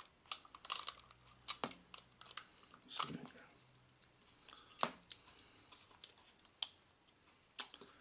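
Irregular small clicks, taps and light scraping of 3D-printed plastic prop parts being worked with a metal multi-tool, with a handful of sharper clicks spread through.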